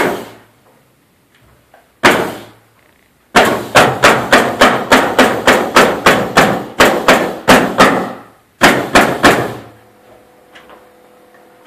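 Nail gun firing into a wooden arch: one shot, another about two seconds later, then a rapid run of about twenty shots at roughly four a second.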